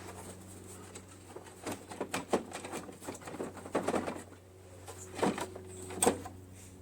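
Hands working on a snowblower's housing and controls: irregular clicks, knocks and rattles of parts and tools, with two sharper knocks near the end, over a steady low hum.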